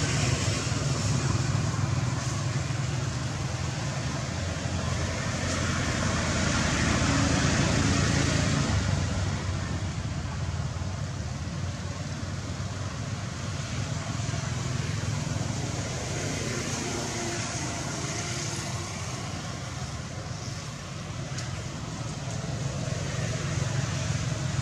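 Steady outdoor background noise: a low rumble under an even hiss, swelling and easing gently.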